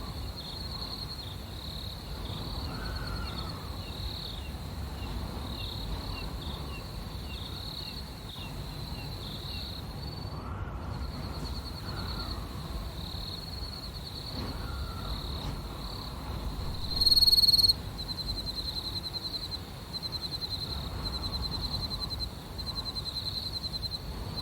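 Night ambience: crickets chirping steadily in a fast pulsing trill over a low, continuous wind rumble that swells softly every few seconds. About two-thirds of the way through, one louder, closer chirp sounds for under a second.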